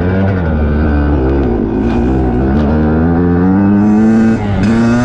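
Dirt bike engine revving under throttle on board, its pitch climbing steadily for about four seconds, then dropping briefly near the end before picking up again.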